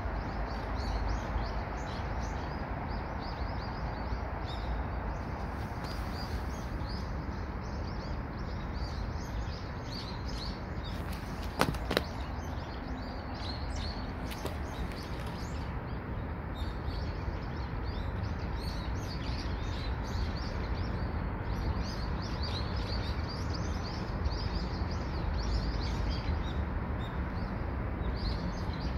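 Small birds chirping again and again over a steady low outdoor rumble, with one sharp click about twelve seconds in.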